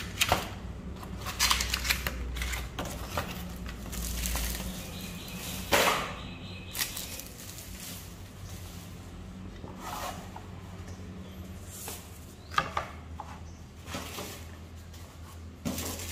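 Handling noise of a pegboard and its cardboard and plastic packaging being moved about on a table: scattered knocks, scrapes and rustles, the sharpest just after the start, about six seconds in and about twelve seconds in, over a low steady hum.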